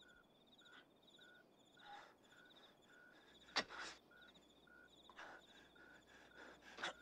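Faint night ambience of crickets chirping in a steady repeating rhythm, one lower chirp and one higher trill. A few soft scuffing sounds come about every second and a half.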